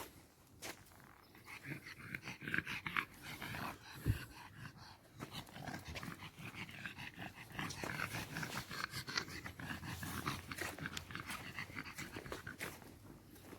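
Dog panting rapidly close to the microphone.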